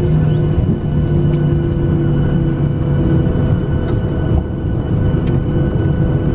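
Boeing 737-800 cabin noise heard from a seat over the wing while the airliner rolls along the ground after landing: a loud, steady roar of engines and wheels with several droning hum tones and occasional faint rattles and clicks.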